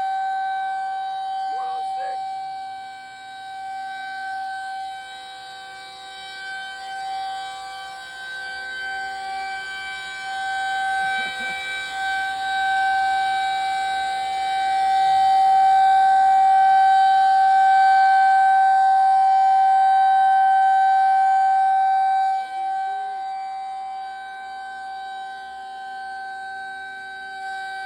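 Federal Signal 2001 rotating tornado warning siren sounding a steady tone, heard from directly beneath it. Its loudness swells and fades as the horn turns, is loudest over a long stretch about two-thirds in, then drops off suddenly.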